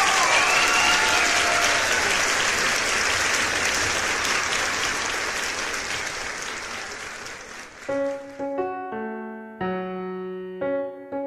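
Applause with a few cheers at first, fading away over about eight seconds; then soft piano music begins.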